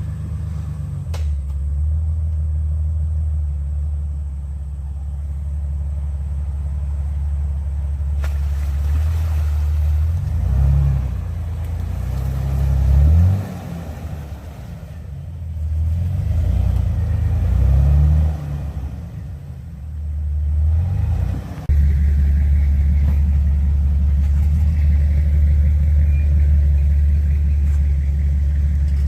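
Off-road 4x4 engine running with a deep rumble, revved up several times in the middle, pitch rising and dropping back, then holding steady near the end.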